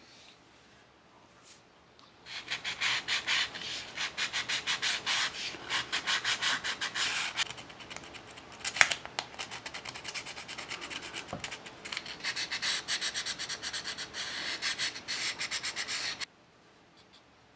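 Folded sandpaper rubbed back and forth by hand along the edge of a small planked wooden model-ship part, in quick even strokes several a second. It starts about two seconds in, eases for a moment midway with one sharp tick, and stops abruptly near the end.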